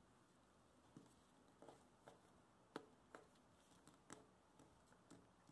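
Faint, scattered crinkles and clicks of a sheet of paper being folded and creased by hand, a small sound every half second or so, the sharpest a little under three seconds in.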